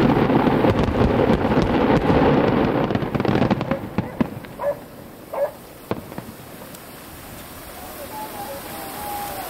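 Fireworks going off: a dense spell of crackling and bangs for about the first three seconds, dying away into a few scattered single pops, then quiet.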